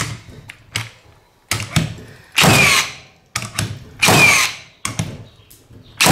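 Hitachi/HiKOKI NR1890DBCL 18 V brushless cordless framing nailer firing framing nails into hard red gum in single-fire mode. There are several shots about a second or so apart, each a sharp bang with a short ringing, falling whine as it dies away.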